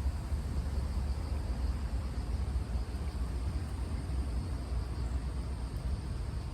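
Steady outdoor background noise: a low, unbroken rumble with a faint hiss above it, with no distinct events.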